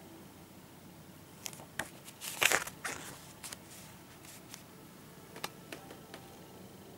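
Paper and plastic rustling and crinkling as a DVD box set's booklet and case are handled. The rustles come in a few short bursts, loudest about two and a half seconds in, with a sharp click about five and a half seconds in.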